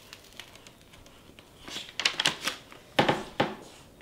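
Paper sandwich wrapper crinkling and rustling as it is handled and opened, in short crackly spells around two seconds in and again about three seconds in.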